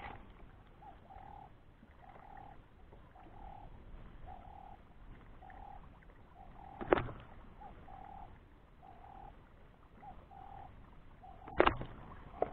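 A bird repeating a short, low call over and over, about once or twice a second. Two sharp knocks stand out above it, about seven seconds in and again near the end.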